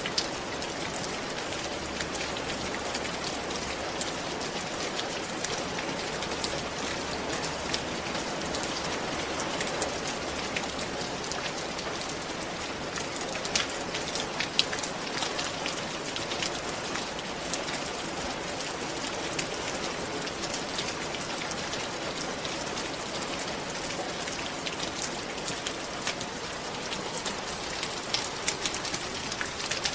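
Steady rain falling on a roof: a dense, even patter with sharp individual drop hits now and then.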